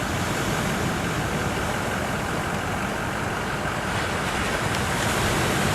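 Steady outdoor wash of ocean surf and wind noise, with a low steady engine hum underneath.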